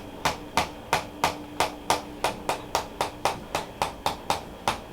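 Rhythmic percussive strikes on a patient's shoulder to loosen the muscles, a steady run of sharp even taps at about three a second.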